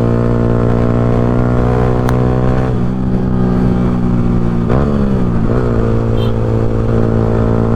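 Yamaha R15's single-cylinder engine through an Akrapovic full-system exhaust, running at steady revs, with a brief dip and rise in engine pitch about five seconds in.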